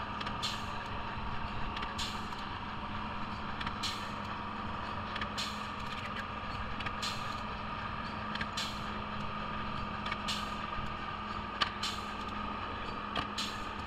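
Welding of a replacement rear body panel onto a car body: short, sharp bursts every second or two, with a steady shop hum under them.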